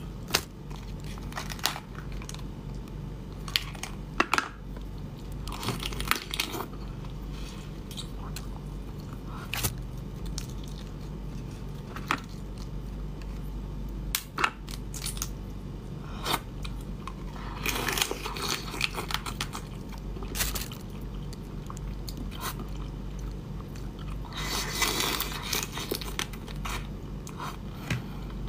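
Crab shells cracking and being pulled apart by hand, with crunching and chewing as the crab is eaten: scattered sharp cracks, with longer crackly stretches about two thirds of the way in and again near the end.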